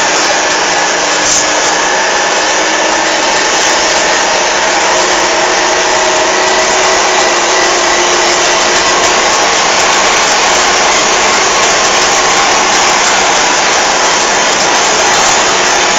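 Steady, loud engine and road noise of a Mercedes-Benz 911 timber truck underway, with faint whining tones drifting slowly in pitch.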